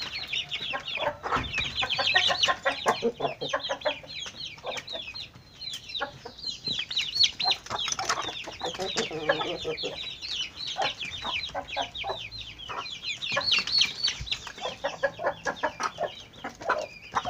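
Chickens calling in a rapid, near-continuous series of short, high calls, the excited sound of hens squabbling over a small snake they are trying to eat.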